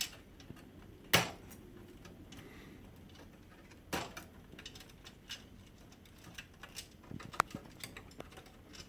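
Small wire connectors being worked loose from a laser printer's circuit board with tweezers: a sharp click about a second in, another about four seconds in, then a run of light ticks near the end.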